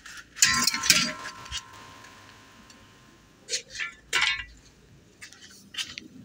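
A metal object clatters onto a tiled floor about half a second in and rings with a clear tone that fades over about two seconds. Two more clattering knocks follow near the four-second mark, then lighter taps like footsteps on tile.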